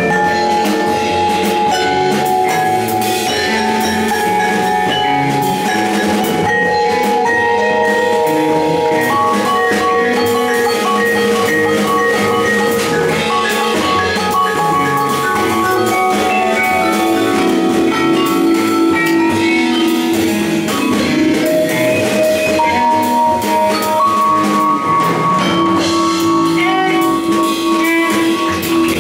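Jazz quartet playing: vibraphone struck with mallets, its notes ringing on, over drum kit, double bass and cello.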